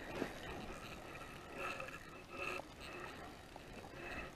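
Faint, intermittent whirring of a small ice-fishing spinning reel being cranked to bring in a hooked fish.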